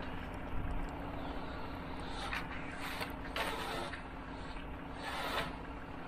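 Wet concrete being raked and struck off: short scraping swishes of concrete rakes and a screed board dragged through the mix, four or five times, over a steady engine drone.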